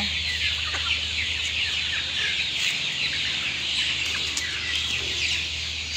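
A flock of young chicks peeping continuously, many overlapping high cheeps at once.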